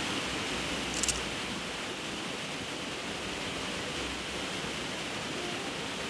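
Lower Wolf Creek Falls rushing steadily over rock into its pool. There is one brief click about a second in.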